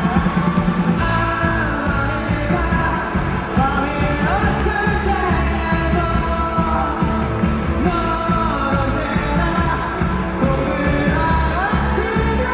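Live rock band playing with a singer's voice over drums, bass and guitars, heard in a concert hall.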